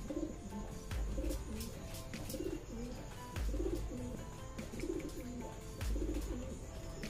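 Pigeons cooing, a short low coo about once a second, over background music with a deep pulse every couple of seconds.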